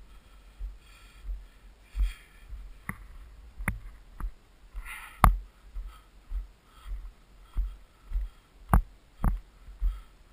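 A hiker's footsteps on gravel and dry grass, about one and a half steps a second, picked up as dull thumps by a body-worn camera, with sharp clicks of stones underfoot and a few breaths.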